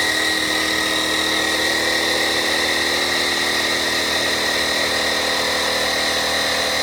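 Small air compressor motor running steadily with a high whine, pumping up the pressure chamber of a Mr. Clear air shot gun drain blaster before it is fired into a toilet.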